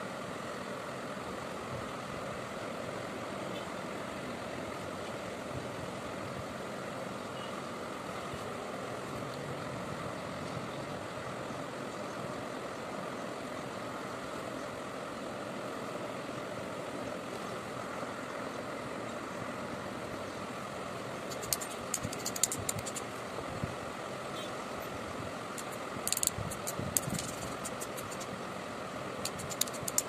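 Steady mechanical hum, like a motor running, with two short spells of sharp rattling clicks near the end.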